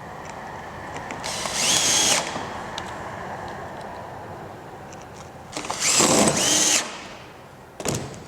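Power drill driving two fasteners through a metal ridge cap, each run about a second long, with the motor's whine rising and then holding steady. A shorter burst comes near the end.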